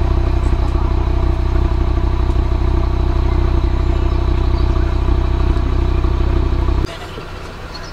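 Audi performance car's engine running steadily at the exhaust tip, with no revving. It cuts off abruptly near the end.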